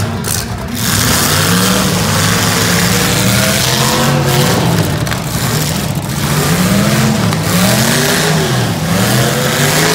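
Several demolition derby cars' engines running and revving at once, their pitch climbing and dropping repeatedly as the cars accelerate and back up.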